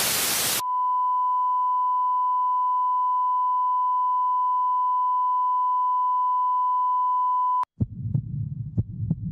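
A short burst of TV static, then a steady 1 kHz broadcast test tone, the signal of a station gone off the air, which cuts off suddenly about seven and a half seconds in. A low rumble with a few sharp clicks follows.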